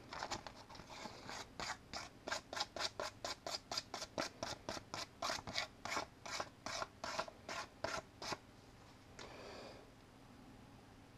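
Rapid back-and-forth rubbing strokes, about four a second, of an abrasive scuffing the clear plastic lens of a 5 mm LED to frost it and diffuse its light. The strokes stop about eight and a half seconds in, followed by one faint brief rub.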